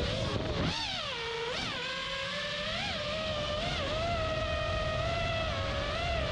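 Five-inch FPV quadcopter's four Lumenier 2206 2450kv brushless motors spinning three-blade props: a whine whose pitch dips and swoops with throttle changes in the first two seconds, then holds fairly steady with small wobbles. Wind rushes over the onboard camera's microphone throughout.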